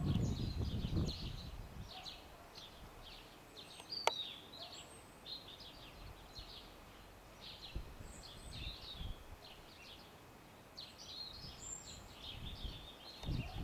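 Small songbirds chirping and singing continuously, with low gusts of rumbling noise at the start and again near the end and a single sharp click about four seconds in.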